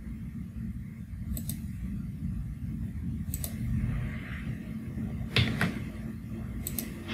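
A few short, sharp clicks of a computer mouse and keyboard, spaced one to two seconds apart, over a steady low hum.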